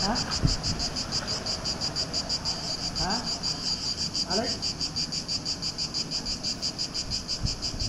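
A chorus of cicadas buzzing in the trees in even, rapid pulses, about six a second, high-pitched and unbroken.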